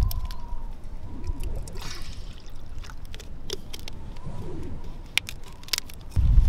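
Plastic water bottle handled in grass: sharp crinkling clicks of the plastic and a brief splash of water about two seconds in, over a low rumble. Music comes in near the end.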